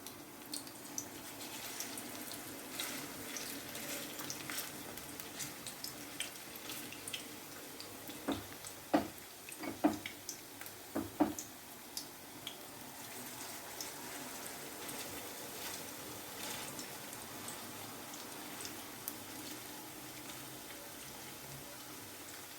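Meat-and-zucchini fritters sizzling in oil in a frying pan: a steady hiss with scattered small crackles. A few short knocks come about eight to eleven seconds in.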